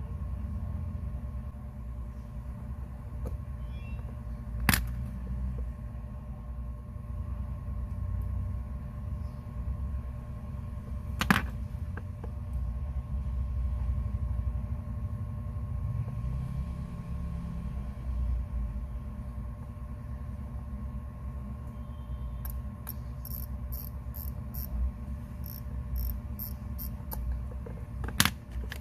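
Steady low hum with three sharp isolated clicks and, near the end, a run of faint rapid light ticks, typical of small metal tools and parts handled at a watch repair bench.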